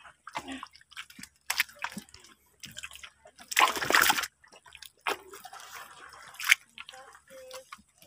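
Rubber boots squelching and sucking in deep, wet mud as people wade through it, in irregular wet splats with one longer, louder squelch about halfway through.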